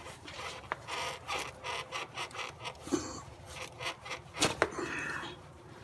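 Rubber air intake duct being twisted and worked off a throttle body by hand: irregular rubbing and scraping with a few sharp knocks.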